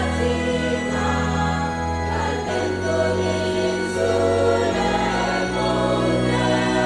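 Church choir singing a hymn in parts with organ accompaniment, the organ holding steady bass notes that change every second or so under the voices.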